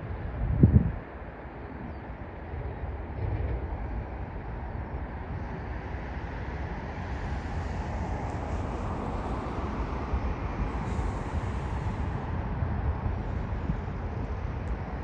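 Jet airliner landing, its engine noise a steady rumble that swells to a peak about ten seconds in and then eases. Wind buffets the microphone, with one short loud gust about a second in.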